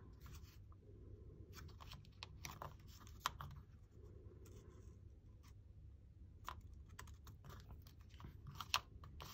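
Faint scattered clicks and light handling noises of fingers working paper cardstock and a wooden clothespin on a craft mat, over a low steady hum; the sharpest clicks come about 3 s in and near the end.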